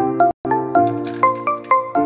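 Background music: a melody of short notes that start sharply and fade, entering at a steady pace, with a brief dropout about a third of a second in.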